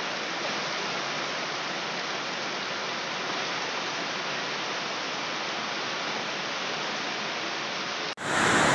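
Steady rushing of floodwater from a river overflowing its banks, an even noise with no distinct splashes. A little after 8 seconds it cuts abruptly to a louder rushing noise.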